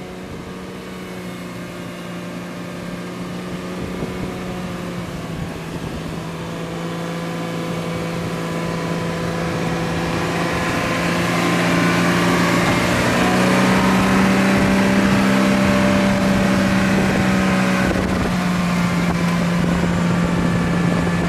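Electric winch on a Toyota Land Cruiser 200 hauling the vehicle out of the river, a steady motor whine under load that grows louder and steps up slightly in pitch a little past the middle.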